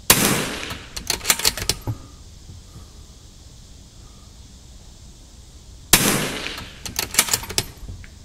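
.22 LR rifle firing two shots about six seconds apart. Each shot is followed within a second by a quick run of sharp clicks and knocks.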